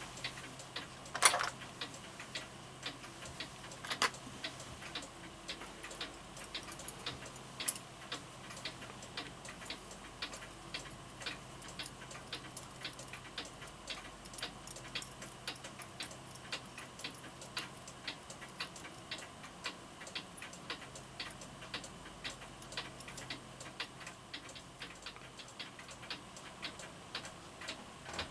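Florenz Kroeber mantel clock movement running, its escapement ticking in a quick, even beat. Two louder knocks sound about a second in and again about four seconds in.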